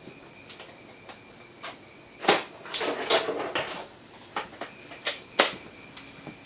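A string of sharp knocks and clatters from hard objects being handled while someone rummages, busiest from about two to three and a half seconds in, with a few more single knocks after that, the last of them one of the loudest.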